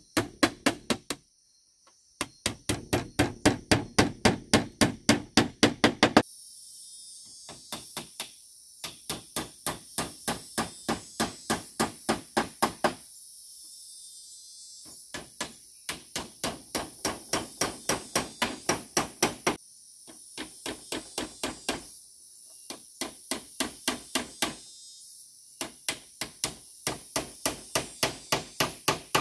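Hammer blows on bamboo, fast and even at about four a second, in runs of several seconds with short pauses between them, over a steady high insect drone.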